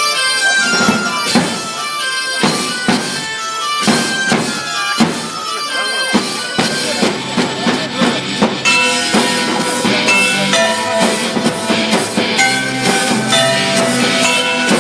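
Music: a held, reedy melody line played over live drum hits. The hits are scattered through the first half and settle into a steady, busier beat from about halfway in.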